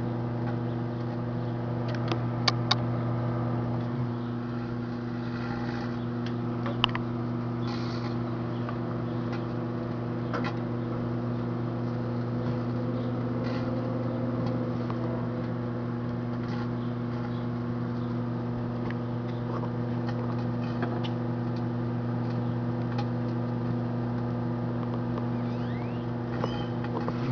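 Microwave oven running flat out: a steady mains hum from its transformer and magnetron, with a few faint clicks and crackles about two, seven and ten seconds in.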